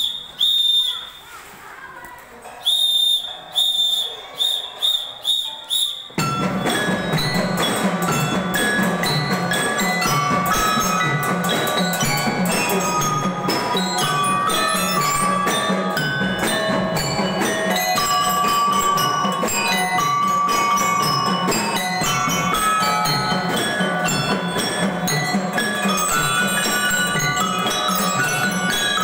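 A whistle blown for a drill: one long blast, then after a pause a run of short rhythmic blasts. About six seconds in, band music starts suddenly and plays on, a bell-like mallet melody over a steady drumbeat.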